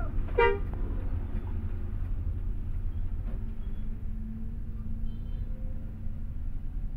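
Bus engine running with a steady low rumble, heard from inside the driver's cab while the bus moves slowly. A brief pitched note sounds about half a second in.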